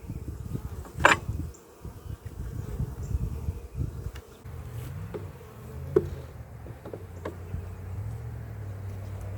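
Honeybees buzzing close by, a low hum that rises and falls as bees fly past and settles into a steady drone near the end. Two sharp knocks, about a second in and about six seconds in.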